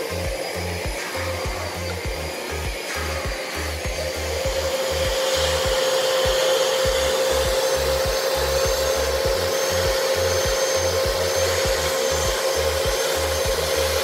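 Würth SEG 10-2 spray-extraction cleaner running, its suction motor giving a steady whine over the rush of air. The upholstery nozzle rubs and scrapes along a fabric seat, growing louder about four seconds in.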